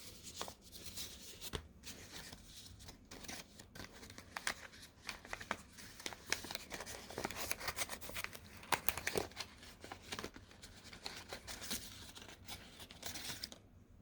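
Crinkly packaging being handled and torn open, a busy crackle with many small sharp clicks, which stops abruptly near the end.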